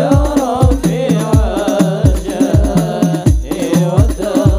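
Hadroh ensemble performing: male voices singing a devotional chant together through microphones over frame drums (rebana) and a deep drum beating about twice a second, each stroke dropping in pitch as it fades.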